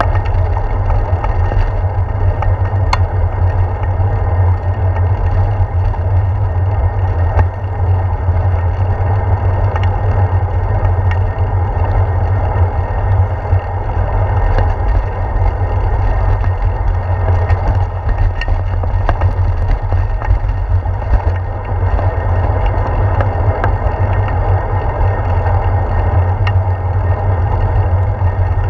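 Riding noise of a bicycle picked up by a handlebar-mounted GoPro: a steady low wind-and-road rumble with tyre hiss on pavement and scattered small clicks and rattles from the bike and mount.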